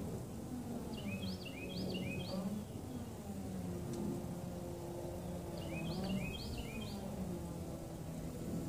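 A songbird sings two short phrases of quick, curving chirp notes, about four seconds apart, over a steady low outdoor hum.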